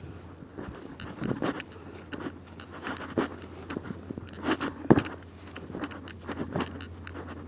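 Footsteps crunching and rustling through dry leaves and undergrowth, in irregular steps, with sharper snaps about three and five seconds in.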